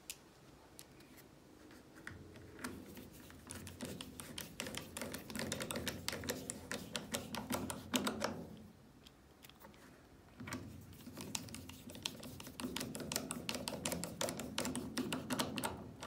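Screwdriver driving two screws into the washing machine's plastic water-valve mounting, one after the other. Each screw gives a couple of seconds of rapid clicking.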